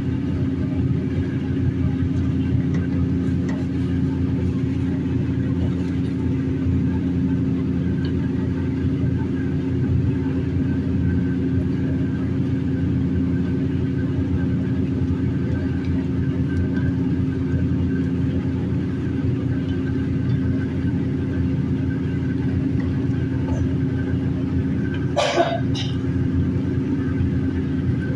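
Steady low rumbling hum at a kitchen stove while a pan of chicken stew steams, with a few steady tones in it and no change throughout. A single short clink about 25 seconds in.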